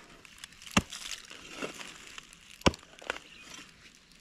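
Pick-mattock striking dry, hard soil. There are two sharp strikes about two seconds apart, with a couple of lighter knocks between.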